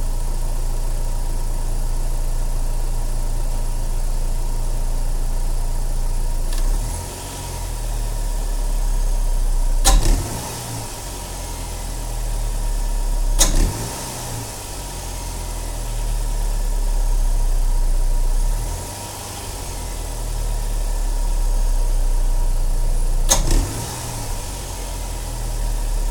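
A 2007 Saturn Sky's 2.4-litre Ecotec inline-four runs near idle and is blipped on the throttle, with a sharp, brief click heard three times. The owner cannot locate the click; it appears only when the throttle is applied aggressively and may have become more noticeable since a K&N cold air intake was fitted.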